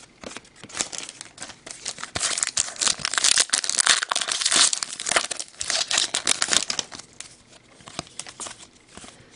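Silver foil wrapper of a trading card pack being torn open and crinkled in the hands, a dense run of crackling from about two seconds in until about seven seconds, with scattered clicks of cards being handled before and after.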